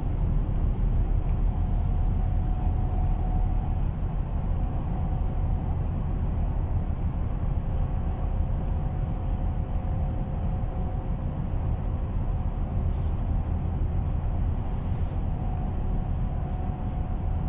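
Interior sound of a MAN Lion's City Ü bus under way: steady low engine and road rumble with a faint constant whine above it.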